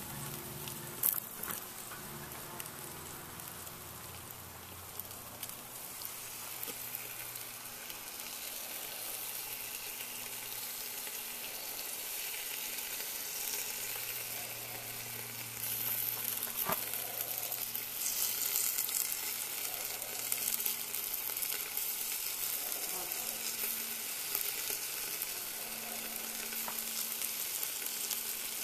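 Beef ribs sizzling on a grill over charcoal in a cast iron camp oven as barbecue sauce is brushed on, a steady hiss that grows a little louder about halfway through, with a couple of brief clicks.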